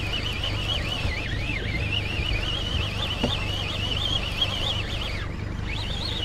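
Baitcasting fishing reels whining under load with a wavering pitch while two hooked striped bass are fought at once. The whine drops out briefly about five seconds in, then resumes.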